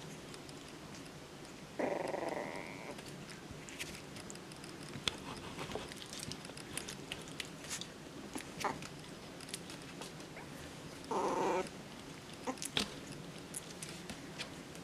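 Jack Russell Terrier puppies, about three and a half weeks old, play-fighting: two short puppy growls, one about two seconds in and another about eleven seconds in, amid soft scuffling and small mouthing clicks.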